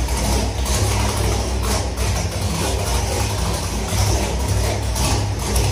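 Big block Chevy V8 running steadily at idle on an engine dyno, with a deep low rumble.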